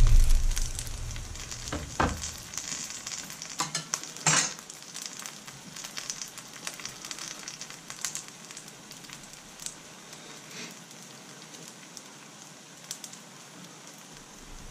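Folded rice paper pizza frying in a non-stick pan, a steady sizzle with fine crackles. There are sharp knocks about two and four seconds in.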